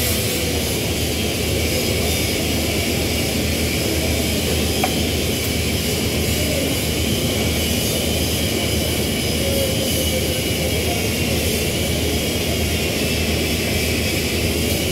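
A steady, loud mechanical roar of workshop machinery, even in level, with no sound from the welding arc standing out above it.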